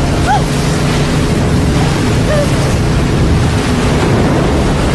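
Wind and heavy seas crashing, loud and steady, over a low steady drone, with a few faint short cries.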